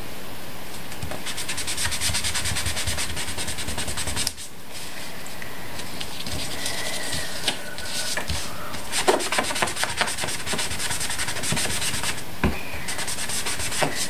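Ink sponge rubbed in quick small strokes over cardstock, blending ink along a torn-paper mask: a scratchy rubbing in several spells, with a brief break about four seconds in and a few sharper ticks near the middle.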